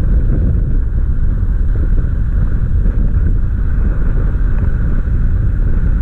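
Wind rushing over the microphone of a pole-held camera in flight under a tandem paraglider: a loud, steady low rumble.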